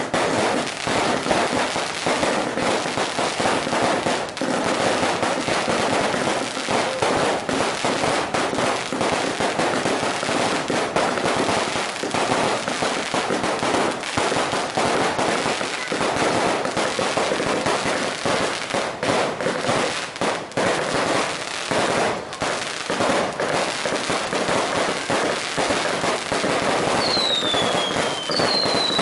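Fireworks going off in a dense, continuous barrage of bangs and crackling. A few falling whistles join in near the end.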